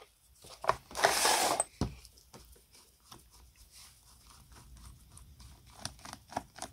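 Tools being handled. About a second in comes a loud, short scraping rattle of steel screwdriver bits against a plastic bit case as a bit is taken out. After that come light clicks and ticks of a screwdriver working the screws on the plastic handle of an old electric sheet metal shears, with a few sharper clicks near the end.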